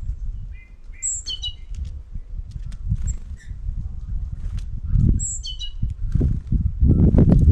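Small birds at a winter feeder: two short, high, falling calls, scattered sharp taps and some wing flutter, over a low rumble that grows louder near the end.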